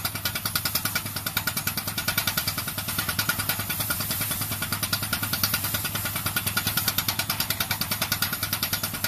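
Loader-mounted guardrail pile driver's compressed-air hammer pounding rapidly and steadily, over the steady drone of the machine's engine and air compressor.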